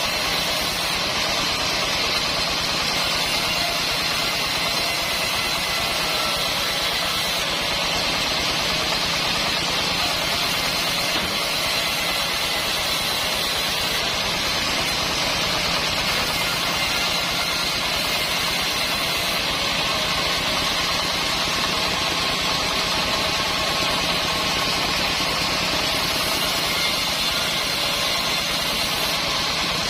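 Band sawmill running steadily: a continuous engine-like mechanical drone with a faint steady whine, unbroken throughout.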